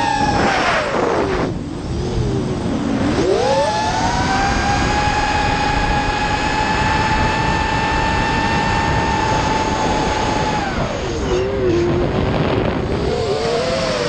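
FPV racing drone's electric motors whining over wind rush on the onboard microphone. The pitch drops as the throttle eases about a second in, climbs back at around three and a half seconds and holds steady, then falls again past ten seconds and wavers before rising near the end.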